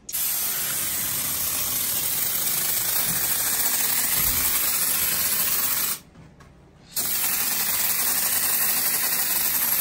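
Spray foam insulation hissing and sputtering out of a foam gun in a steady spray, cut off for about a second near the middle and then resumed.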